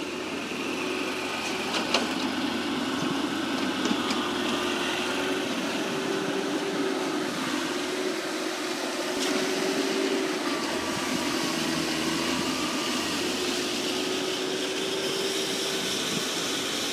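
Engine of heavy construction machinery running steadily, a continuous drone with a slightly wavering pitch, with a few faint clicks over it.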